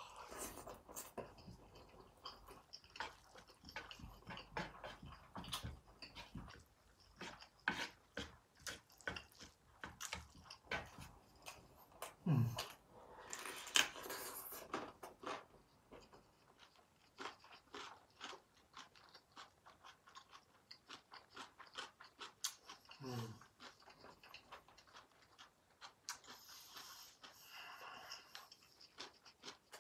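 Close-miked eating sounds of yakisoba noodles and crunchy radish kimchi: many quick wet mouth clicks and chewing. A short low hum of the voice comes twice, about 12 and 23 seconds in.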